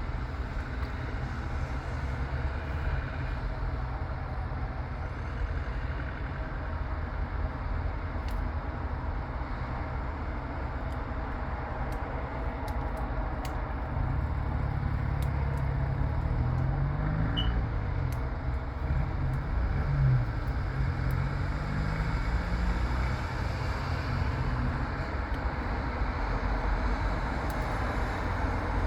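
Road traffic going by, with a steady low engine rumble. About halfway through, an engine close by gets louder, and its pitch rises and falls as it pulls away.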